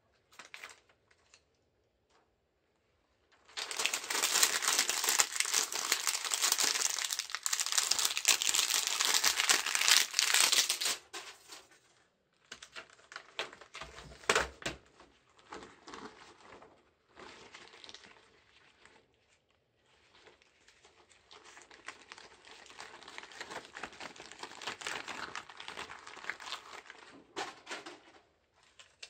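Thin plastic keyboard membrane sheets crinkling and rustling as gloved hands handle and peel them. The crinkling is loudest in a long stretch starting a few seconds in, then comes as scattered crackles, and returns more softly near the end.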